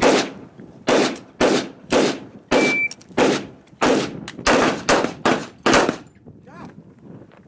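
A rapid string of about a dozen handgun shots on an outdoor range, roughly two a second, each with a short ringing tail, ending about six seconds in. A short high beep sounds about two and a half seconds in.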